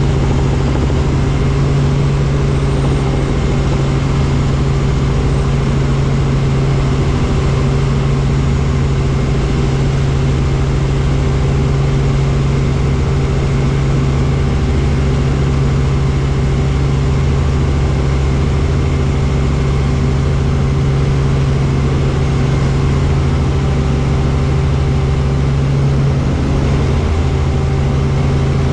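Helicopter in cruising flight heard from inside the cabin: a loud, steady drone of engine and rotors with a constant low hum.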